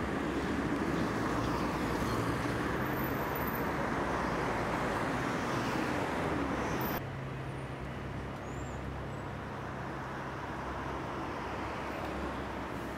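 City street traffic: a steady wash of passing cars and engine hum. About seven seconds in it cuts abruptly to a quieter street ambience.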